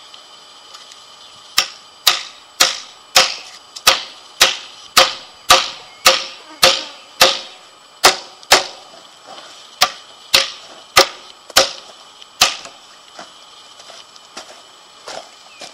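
A hammer striking a galvanised steel fencing bracket about eighteen times, roughly two blows a second with a short pause midway, each blow ringing briefly: the bracket is being knocked down onto the timber stay to lock it in.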